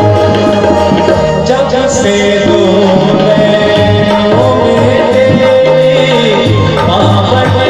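Live Indian folk stage music over a public-address system: a man sings into a microphone over hand drums and a melody instrument, with a steady drum rhythm underneath.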